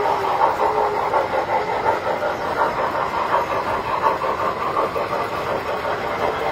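Tinplate toy trains running on the layout's track: a steady rattle and rumble of metal wheels on rails, with a clickety-clack as the cars roll past.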